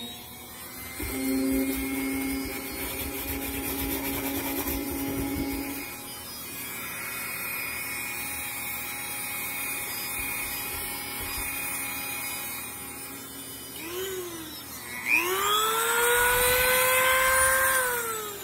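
Dremel rotary tool with a small wheel, whining steadily as it carves foam insulation board. About fifteen seconds in it speeds up to a higher pitch, then winds down near the end.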